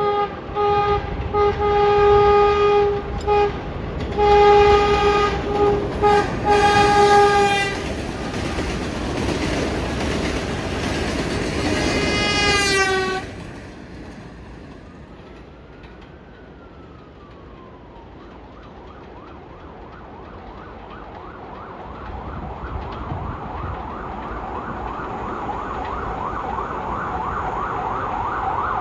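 New York City subway train sounding its horn in several long blasts as it comes through the station, its rumble loud under the horn, with a last blast that drops in pitch as the train goes by. The train then fades away and an emergency-vehicle siren wails rapidly from the street, growing louder near the end.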